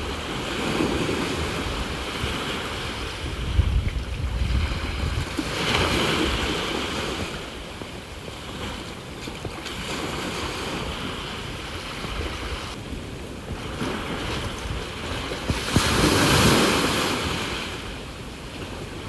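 Sea waves washing onto the shore in slow swells; the biggest surges come about six seconds in and again near the end. Wind gusts buffet the microphone with a low rumble.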